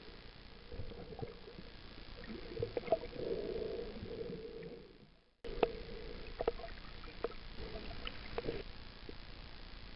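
Muffled underwater sound picked up by a camera in a waterproof housing: a steady hum with scattered sharp clicks, fading out about five seconds in and starting again abruptly.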